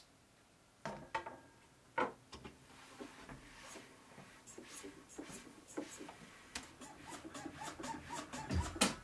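Rubbing and scraping handling sounds with light knocks: two sharper knocks in the first couple of seconds, then quick ticks coming ever faster. A deep beat comes in near the end.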